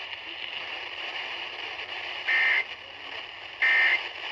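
Weather-radio receiver hiss, then two short, buzzy bursts of EAS SAME digital data tones about a second and a half apart. These are the end-of-message bursts that close a severe thunderstorm warning broadcast.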